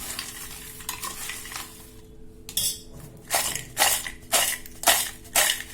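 Spoon tossing fried okra in a dish: soft stirring at first, then about six sharp knocks and scrapes against the dish, roughly two a second, in the second half.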